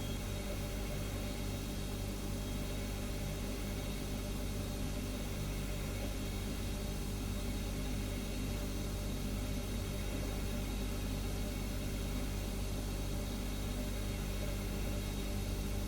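Refrigerator humming steadily: a low, unchanging drone of several steady tones over a faint hiss.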